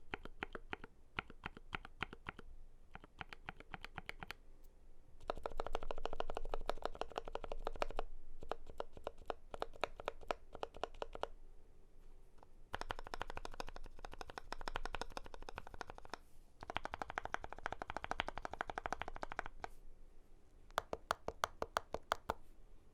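Typing on a Glorious GMMK Pro mechanical keyboard with lubed JWK Lavender linear switches and PBT Cherry-profile keycaps: rapid keystrokes in bursts, broken by a few short pauses.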